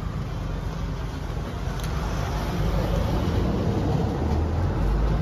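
Steady low rumbling noise, getting a little louder in the second half.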